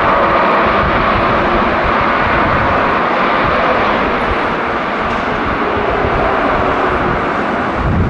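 Boeing 787 airliner slowing on its landing rollout with spoilers up: a loud, steady jet-engine rush that eases slowly toward the end.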